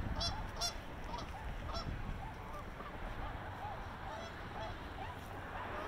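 A flock of swans calling on open water: many short calls that rise and fall in pitch, overlapping one another throughout, over a low steady rumble.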